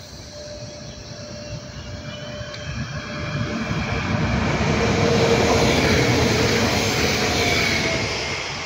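Electric multiple unit passenger train passing on the main line: the rumble and hiss of its wheels on the rails build up, are loudest about five to seven seconds in, then fade as it moves away, with a faint whine over the top.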